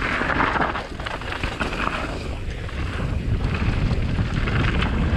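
Full-suspension mountain bike (YT Capra) descending a dirt singletrack at speed: steady tyre noise over the ground with many small clicks and rattles from the bike, under wind buffeting a helmet or bar-mounted action camera's microphone.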